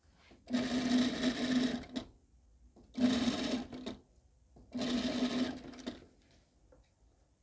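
Sewing machine stitching a seam in three short runs, the first about a second and a half long and the other two about a second each, with brief stops between them. Each run holds a steady pitch.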